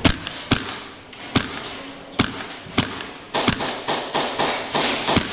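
Airsoft gunfire: about eight sharp cracks of single shots and BB hits, irregularly spaced over a few seconds, with fainter clicks between them.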